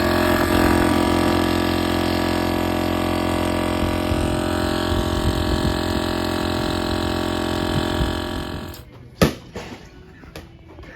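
A motor or engine running steadily with an even hum, stopping about nine seconds in, followed by a single sharp knock.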